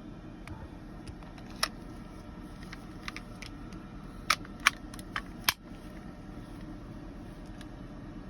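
Elite Force Tactical Force 6XP airsoft pistol shooting 6 mm metal BBs at a television: sharp cracks of shots and BB hits. One comes about a second and a half in, then four follow in quick succession over about a second in the middle, with a few fainter clicks between.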